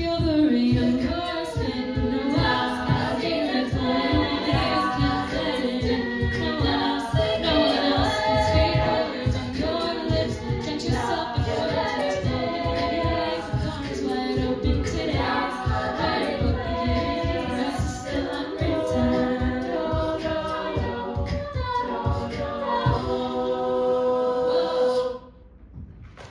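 An upper-voice a cappella group sings a pop arrangement in close harmony, with vocal percussion keeping a steady beat underneath. About a second before the end, the song closes on a held chord that fades out.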